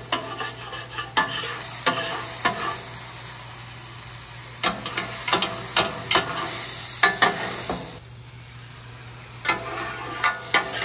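Metal spatula scraping the hot steel top of a Weber 22-inch griddle in bursts of quick strokes, over a steady sizzle of water on the hot steel as the surface is deglazed and cleaned a section at a time.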